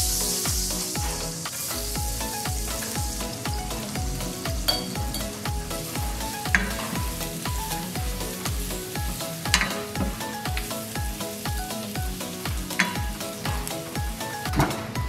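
Butter sizzling in a stainless steel pan, the hiss loudest in the first second or two, then chopped garlic and red pepper flakes stirred in it with a wooden spatula, with a few sharp clicks. Background music with a steady beat underneath.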